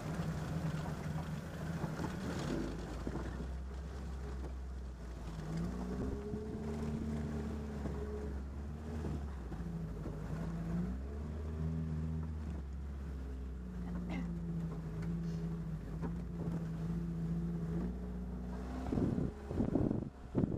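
Military jeep's engine running at low speed on a rough off-road track, its note rising and falling with the throttle. A few loud knocks near the end as the vehicle jolts.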